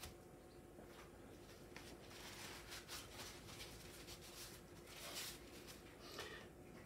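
Near silence: room tone with a faint steady hum and a few soft scattered clicks and rustles of handling.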